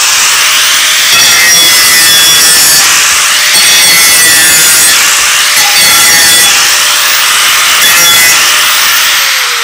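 Corded angle grinder with a cut-off wheel slicing through an aluminium loading ramp, a loud continuous high-pitched cutting whine. The grinder starts to spin down right at the end.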